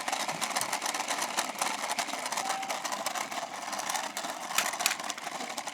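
Toy remote-control car's motor running as the car drives off, a steady whirring with many small crackles over it.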